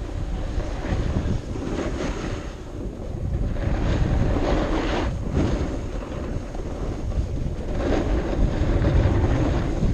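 Wind buffeting the microphone, loud and rumbling, surging and easing several times.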